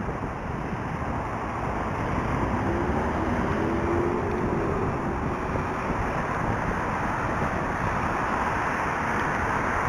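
Steady road traffic noise from cars on a wide multi-lane street, with wind on the microphone of a moving bicycle. A low hum stands out for a couple of seconds about three seconds in.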